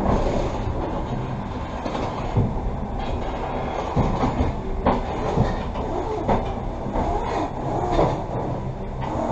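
Passenger train coach running along the track: a steady rolling rumble with irregular clicks of the wheels over the rails.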